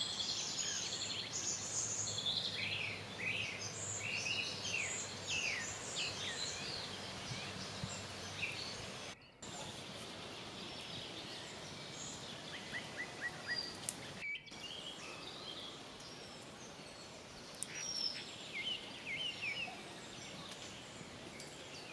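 Several small forest birds singing and chirping over a steady faint outdoor hiss, the calls busy and overlapping for the first half and sparser after that.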